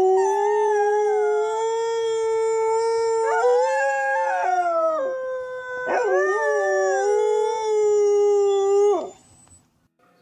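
A dog howling: two long, held howls, the first wavering in pitch near its end, the second stopping abruptly about nine seconds in.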